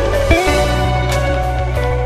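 Instrumental background music with held notes over a steady low bass; one note slides in pitch about a third of a second in.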